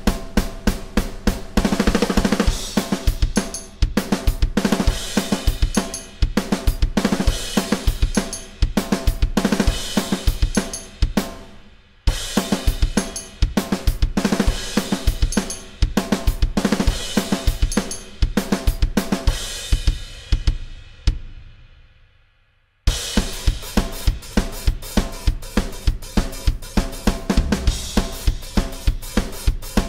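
Roland electronic drum kit played as a drum track alone: a steady rock beat of kick, snare, hi-hat and crash cymbals. About two-thirds of the way through, the beat stops and a cymbal is left to fade away for a couple of seconds before the beat comes back in.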